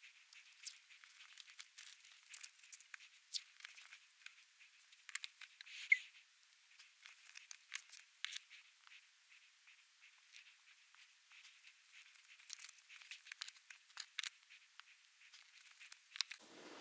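Faint crackling and ticking of washi tape being peeled off the roll, laid down and cut with a craft knife, in scattered short strokes with one louder tick about halfway through.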